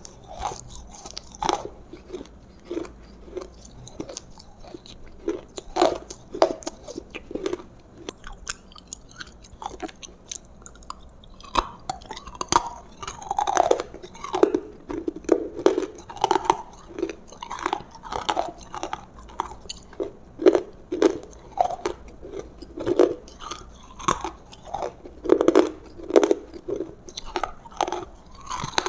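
Close-up chewing and biting of roasted food, with crunchy, wet mouth sounds coming every fraction of a second; the chewing gets busier and louder about halfway through.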